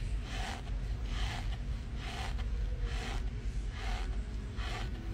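A mouthful of dry cornstarch being chewed, a short rough mouth sound about once a second, over a steady low rumble.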